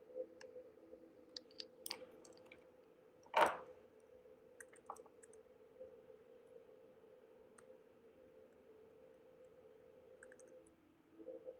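Scattered light clicks and taps, with one louder knock about three and a half seconds in, over a faint steady hum.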